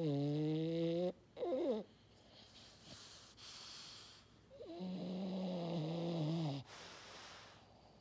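French Bulldog snoring in its sleep: two long, deep, honking snores, one at the start and one about five seconds in, with a short falling sputter after the first and softer airy breaths between.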